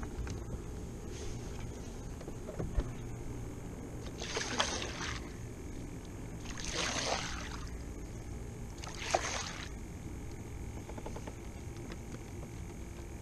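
Water sloshing against a fishing kayak's hull in three short swishes, about two to two and a half seconds apart, over a low steady hum.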